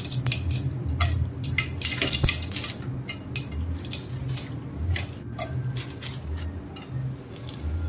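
Scattered light clicks and clinks as whole spices (bay leaf, shahi jeera) are dropped by hand into hot ghee in an aluminium pot and a plastic spice tub is handled, over a low steady hum.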